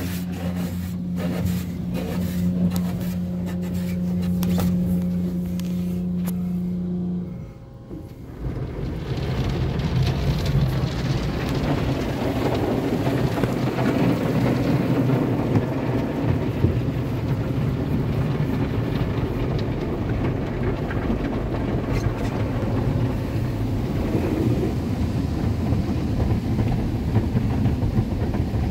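Autec AES-425 in-bay automatic car wash running, heard from inside the car. A steady motor hum runs for about seven seconds and cuts out briefly. Then a steady, dense rushing of the wash spraying the car carries on.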